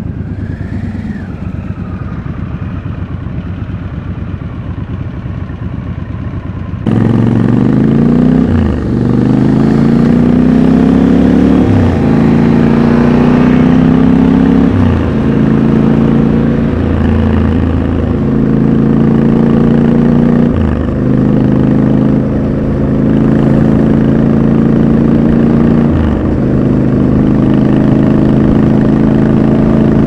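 Triumph Scrambler 1200 XC's 1200 cc parallel-twin engine idling at a standstill. About seven seconds in it gets suddenly much louder and pulls away, its pitch climbing and breaking at several gear changes before it settles into steadier running.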